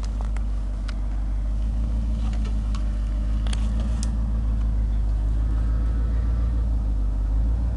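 Full-size Ford Bronco's engine running at low revs as the truck crawls slowly along a muddy trail: a steady low drone that grows gradually louder as it approaches.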